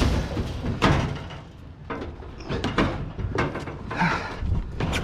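Knocks, clatter and scraping of scrap being pulled and shifted about in a rubbish pile. The loudest knocks come at the start and again about a second in.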